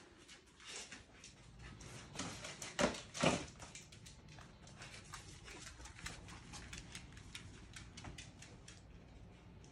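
Miniature bull terrier puppy's claws clicking in a quick, irregular patter on a hard laminate floor as she trots around searching, with two louder scuffs about three seconds in.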